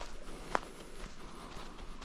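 Footsteps of a person walking on a hiking trail, with one sharp step about half a second in.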